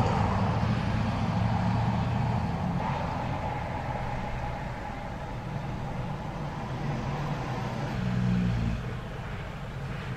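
Road traffic passing: pickup trucks towing horse trailers and a semi-truck going by, with engine rumble and tyre noise. It is loudest at the start and fades as a vehicle passes, then another engine swells about eight seconds in.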